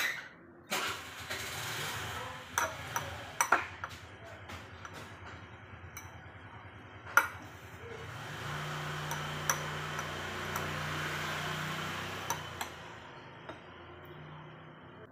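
Fork and spoon clinking and scraping against ceramic bowls in a handful of sharp clicks, over a steady low rumble that swells about eight seconds in and fades near the end.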